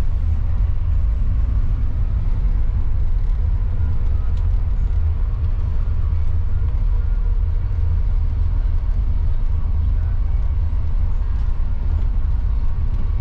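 Steady road and drivetrain rumble of a Mercedes-Benz OC500RF 2542 diesel coach under way, heard from inside the passenger cabin, deep and even with no marked changes.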